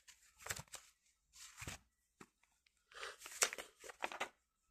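Quiet rustling and handling noises in four short bursts: paper or packaging being handled.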